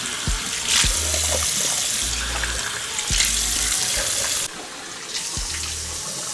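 Tap water running into a sink as a facial cleanser is rinsed off; the flow gets quieter about four and a half seconds in.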